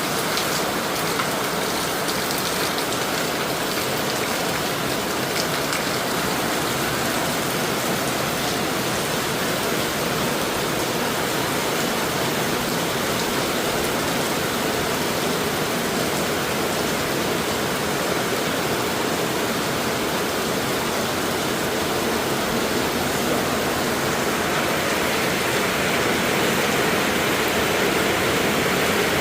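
Rain falling steadily: a dense, even hiss of water with no pauses, growing a little louder near the end.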